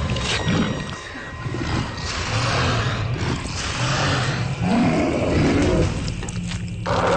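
Werewolf roaring and snarling: deep, rough growls that swell and rise in pitch about four to five seconds in.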